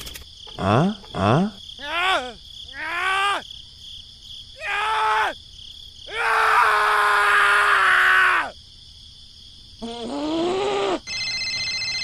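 Cartoon character voice effects: a run of short squeaky gibberish exclamations that swoop up and down in pitch, then a long drawn-out wail about six seconds in. Near the end a steady, evenly pulsing electronic mobile-phone ringtone starts.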